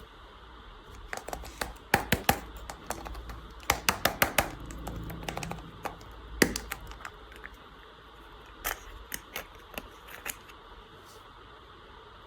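Hands handling and opening toy packaging: irregular sharp clicks and taps in clusters, busiest in the first half, with a scattered few later on.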